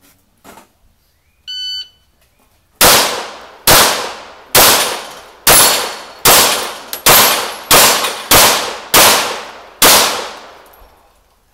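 A shot timer gives a short electronic beep as the start signal. About a second later a Glock pistol fires ten quick shots at steel plates, under a second apart, each shot echoing off the covered range.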